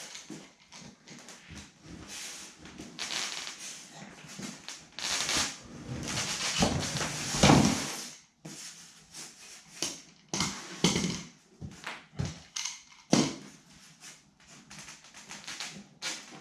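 Rubber spline being pressed into a window screen frame's channel with a spline roller, with rustling of the screen mesh and scattered clicks and taps from the frame and tool, a louder rustle about halfway through.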